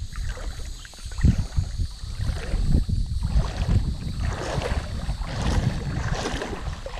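Wind buffeting the microphone in uneven gusts, with water sloshing and splashing in surges through the middle of the stretch.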